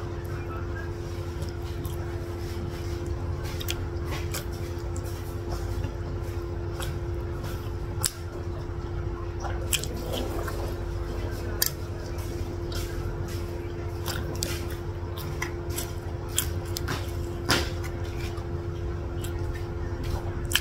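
Close-miked chewing and wet mouth sounds of someone eating chicken and beef satay and rice cakes, with sharp little clicks scattered throughout. A steady low hum runs underneath.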